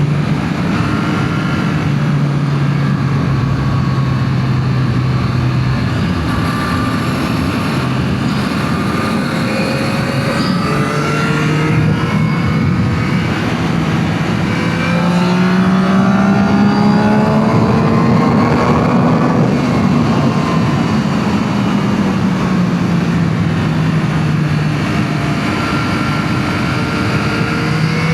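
2025 Yamaha MT-09 SP's 890 cc inline-three engine running through its stock exhaust while riding, with wind and road noise. The engine note holds steady for the first few seconds, climbs as the bike accelerates about halfway through, then eases back down.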